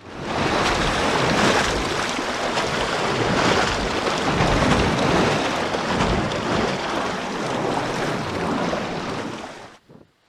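Waterfall pouring down a fjord cliff, a steady loud rushing of water that cuts off suddenly near the end.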